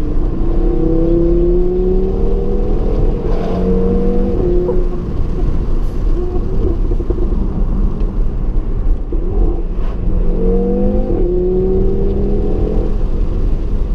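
Audi TT RS's turbocharged 2.5-litre inline five-cylinder engine pulling under acceleration. Its note rises twice, through the first five seconds and again from about ten seconds in, falling away after each climb, over a steady low rumble.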